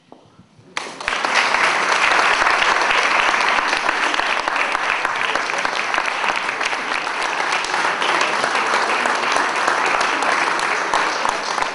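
An audience applauding, starting suddenly about a second in and continuing steadily.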